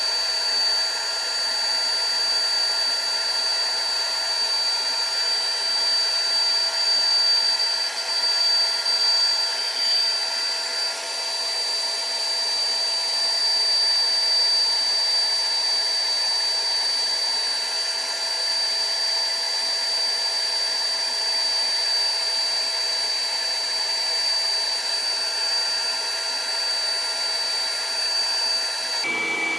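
Hot-air blower running steadily: a whooshing rush with a high whine. Near the end the pitch of the whine drops suddenly and the sound turns fuller.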